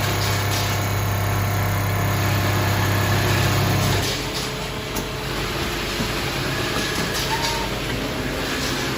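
Computerized sleeping bag quilting machine running with a steady low hum while it stitches; the hum stops about four seconds in, leaving quieter steady machinery noise.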